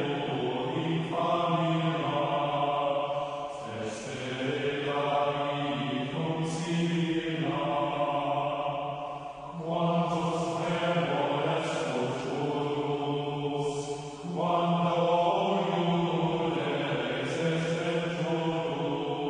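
Slow background music of long-held, chant-like tones over a steady low drone, moving to a new chord every two to three seconds.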